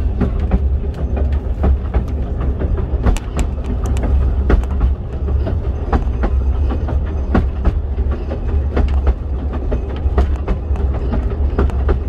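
Narrow-gauge railway carriage running along the track, heard from inside the carriage: a steady low rumble with frequent, irregular clicks and knocks from the wheels on the rails.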